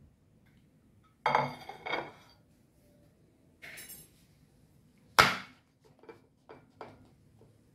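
Ceramic plate and bowl clinking and knocking against each other: two ringing clinks, a short scrape, a sharp knock about five seconds in, then a few light taps as an upturned bowl of rice is pressed down onto the plate.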